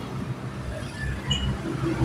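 Low, steady rumble of city road traffic and motorcycle engines heard from a moving motorcycle, with a few faint short high tones in the middle.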